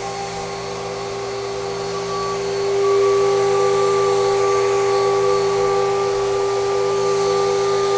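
A 2.2 kW VFD-driven CNC router spindle spinning freely at speed before the cut begins, a steady whine made of several held tones, getting a little louder about three seconds in.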